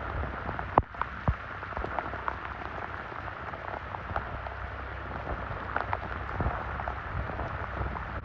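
Heavy rain falling, a steady hiss with scattered sharp drop hits; two louder knocks come about a second in.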